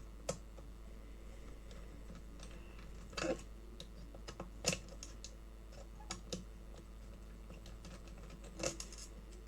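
Scattered sharp clicks and taps of a hand screwdriver and small screws being worked on an Xbox Series X, about six separate clicks a second or more apart over a faint steady background.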